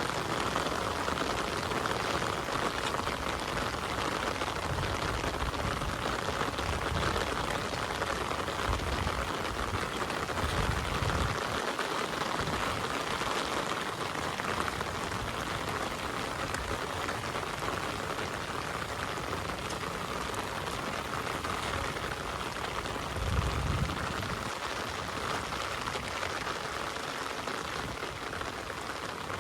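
Heavy rain falling steadily, a dense even hiss of drops. A few low rumbles come and go, the strongest about eleven and twenty-three seconds in.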